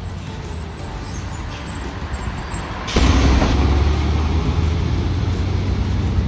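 Diesel engine of a red MAN tipper semi-truck rumbling as it drives past close by. About halfway through it gets suddenly much louder, with a brief hiss, and then a heavy, deep engine rumble.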